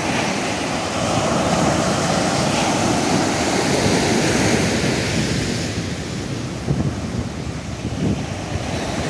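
Ocean surf breaking and washing up the sand, with wind buffeting the microphone.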